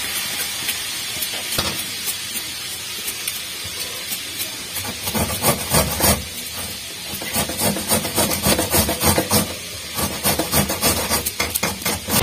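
Green papaya being grated on a flat metal grater into a steel bowl: rapid, uneven rasping strokes that get louder and denser about five seconds in, over a steady hiss.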